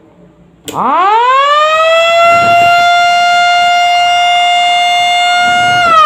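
Electric motor siren switched on with a push button: a click, then the wail climbs steeply in pitch as the rotor spins up and holds one loud, steady tone. Near the end it is switched off and the pitch begins to fall as the rotor winds down.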